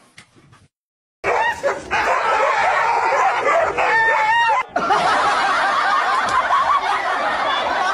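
A group of dogs barking and yelping all at once, many voices overlapping in a loud, continuous clamour that starts suddenly about a second in.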